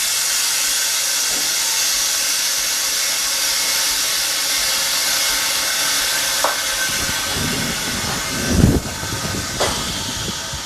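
Air hissing steadily out of an OCA bubble-remover (autoclave) chamber as its pressure is released at the end of the bubble-removal cycle, easing a little later on. A few knocks and clunks come near the end.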